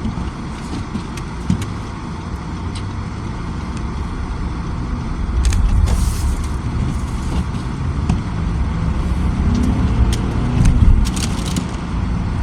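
Car driving on a snow-covered road, heard from inside the cabin: a steady low rumble of engine and tyres that grows louder about halfway through, with scattered clicks and crackles.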